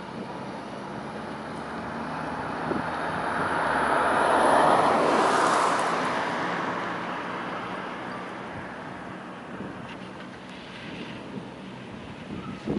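A vehicle passing by, its tyre and road noise swelling to a peak about five seconds in and fading away over the next few seconds.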